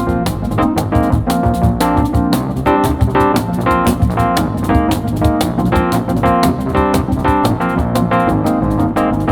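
Live instrumental jazz/MPB duo of piano and percussion: the piano plays chords and melody over a busy, steady percussion rhythm of many quick strikes a second.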